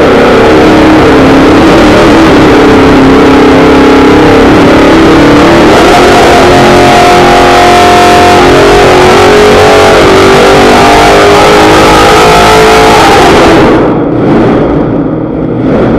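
A 489 cubic-inch big-block V8 running very loud at high revs on an engine dyno during a power pull. Its pitch climbs steadily through the middle of the run, then the sound drops off sharply about fourteen seconds in as the pull ends.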